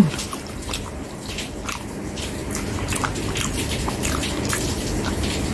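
Close-miked chewing and wet mouth smacks of a person eating rice and stew, a scatter of short, irregular clicks and squelches.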